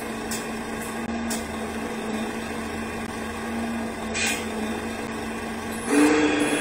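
Small electric motor in a 1/14-scale RC tow truck running with a steady whine. About six seconds in it gets louder and higher as the truck's rear underlift starts to lower.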